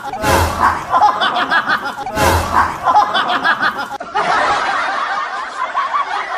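A snickering laugh, added as a sound effect, repeating as an identical loop about every two seconds. About four seconds in, a different laughing clip takes over.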